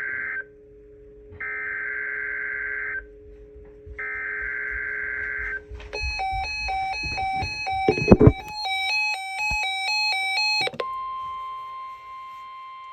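Emergency Alert System SAME header: three screechy digital data bursts, each about a second and a half long and a second apart, over a low steady hum. Then a rapid stepping sequence of electronic chime tones with a heavy low thud in the middle, and after that a steady alert tone near 1 kHz that slowly fades.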